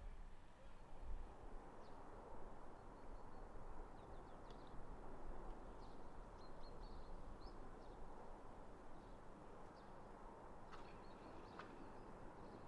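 Quiet ambience: a faint steady low rumble, with scattered short bird chirps that cluster around the middle and near the end.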